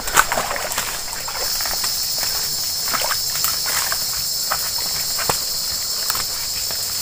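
Footsteps and branches rustling and snapping as people push through dense brush, with scattered twig clicks. A steady high-pitched insect chorus swells in about a second and a half in and keeps on.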